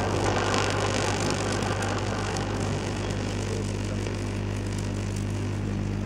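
Microwave-oven magnetron rig humming steadily and low, with the hiss of a plasma flame burning off a paperclip on a wooden board that fades over the first two or three seconds.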